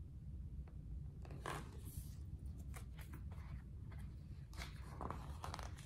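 Faint rustling and soft clicks of book pages being handled and turned, over a low steady hum.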